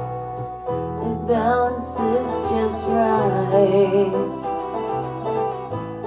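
Music from a song: steady plucked-string accompaniment, with a wavering melody line over it from about a second in.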